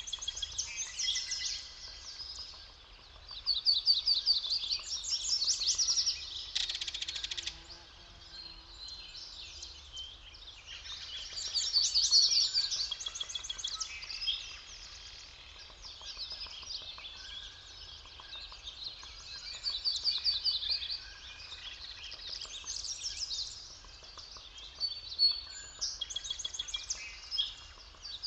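Several songbirds singing at once, their high trilled phrases overlapping and swelling in waves every few seconds. About seven seconds in there is a short buzzy rattle.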